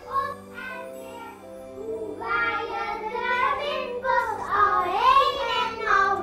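Young children singing together, starting about two seconds in, over soft background music.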